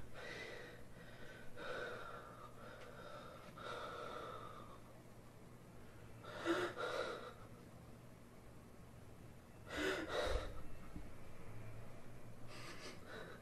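A young man crying softly, with gasping sobs about six and a half seconds in, again at ten seconds, and near the end.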